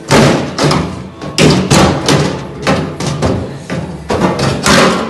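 A series of loud, uneven thumps and knocks, two or three a second, as a large panel is shoved and knocked into place against the aluminium boat's stern framing.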